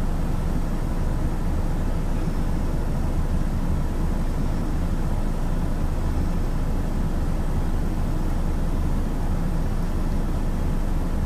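Steady low rumbling noise with no distinct calls or sudden sounds.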